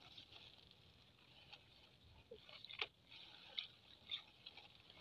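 Near silence: faint rustling of grass and wet mud with a few soft clicks as hands grope in a hole in the ground, over a faint steady high hiss.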